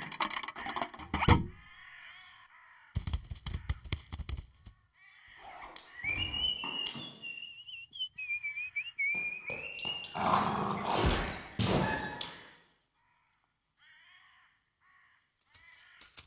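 Cartoon sound effects: a thunk about a second in, scattered noisy bursts, then a high wavering whistle held for about three and a half seconds mid-way, followed by more noise and a quiet stretch near the end.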